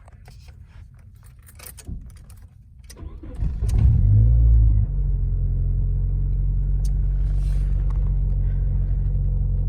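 A few clicks, then a car engine cranked and catching about three and a half seconds in, flaring briefly to high revs before settling into a steady idle. The engine is being started after a fuel injector replacement and runs smoothly.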